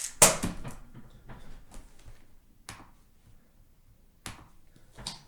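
Irregular clicks and knocks of hard plastic Rubik's cubes being picked up, turned over and set down on a table. The loudest knock comes just after the start, with a few sparser clicks over the rest.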